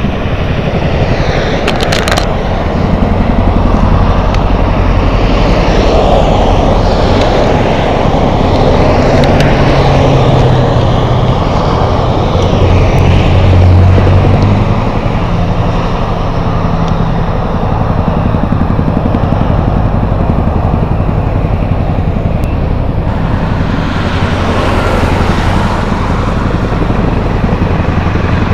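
Steady drone of a CH-47 Chinook helicopter's twin rotors and turbines mixed with a Honda NC700X's parallel-twin engine idling, swelling slightly about halfway through.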